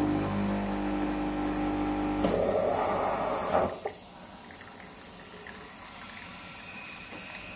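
Coffee Day coffee vending machine humming steadily as it dispenses a cappuccino. About two seconds in, a sudden loud hiss of steam blows out of the machine for about a second and a half. It then cuts off as the dispense ends, leaving a faint hum.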